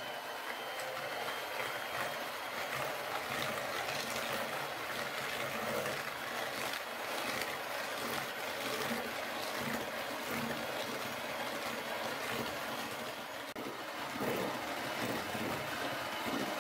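Electric hand mixer running steadily, its beaters whipping eggs and sugar in a plastic bowl until the mixture turns white and fluffy.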